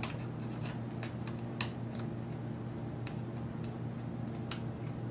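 Scattered light clicks and taps of a pry tool working under a MacBook Air's speaker to free it from its double-sided tape, a few faint ticks with one a little sharper about a second and a half in, over a steady low hum.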